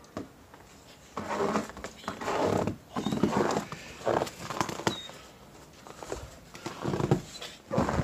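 Footsteps crunching through deep fresh snow in uneven bursts.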